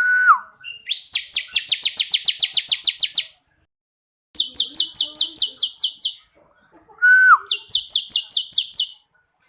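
Ciblek kristal (bar-winged prinia) singing: a short whistled note that slurs downward, then a fast trill of evenly repeated high, buzzy notes, about seven a second, given in three bursts with a second downward whistle before the last.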